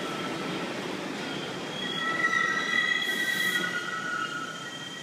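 New York City subway train slowing into a station, squealing in several steady high tones over the rumble of the cars. A brief high hiss comes about three seconds in.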